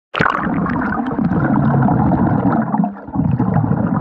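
A sudden splash as the camera goes into the pool water, then a loud, muffled rushing and gurgling of water and bubbles heard from underwater. It dips briefly about three seconds in.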